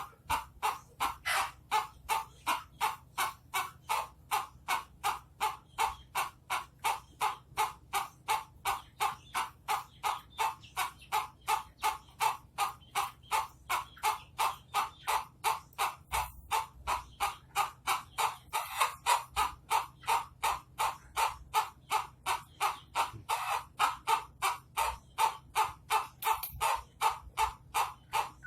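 Ayam ketawa (Indonesian laughing chicken) crowing its long laughing crow: a rapid, evenly spaced run of short cackling notes, about three a second, that goes on without a break.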